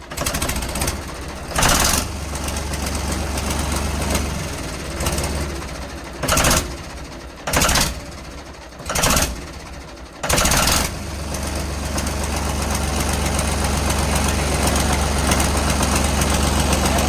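Turbocharged vehicle engine running just after a new, larger turbo has been fitted. It runs steadily, is blipped in several short loud surges, then settles into a louder, steady run near the end.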